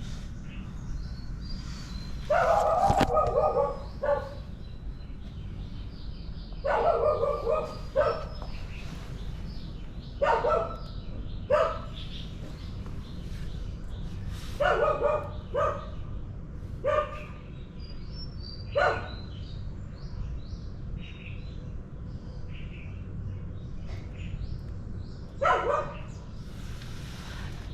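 A dog barking in bouts of a few barks each, about seven bouts spread over the stretch with pauses between them, over a steady low background hum.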